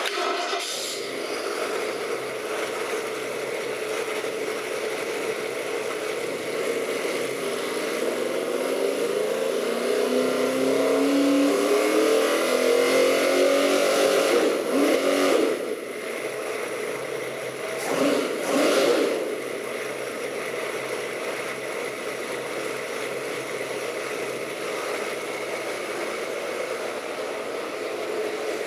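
Ford 351 Windsor small-block V8 crate engine running on a test stand. About eight seconds in it is revved up slowly for several seconds and drops back to idle, is revved once more briefly a few seconds later, then idles steadily.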